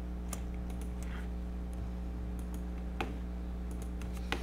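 Computer mouse clicking twice, about three seconds in and near the end, with a few fainter ticks, over a steady low electrical hum.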